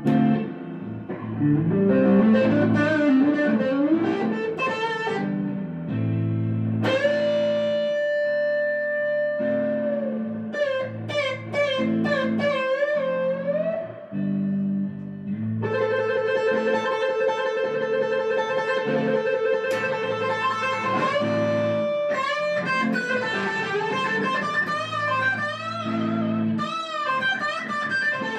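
Instrumental background music led by electric guitar, with bent and wavering notes over a low sustained accompaniment.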